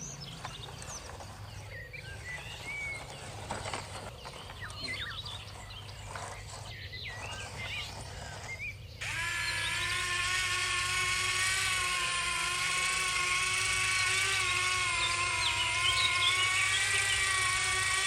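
Birds chirping over outdoor background noise; about halfway through, a small electric motor starts up with a steady, loud whine, the drive motor of a remote-control toy vehicle running.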